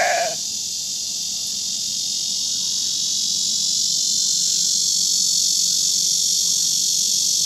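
Steady, high-pitched chorus of insects, growing slightly louder, with the end of a goat's bleat at the very start.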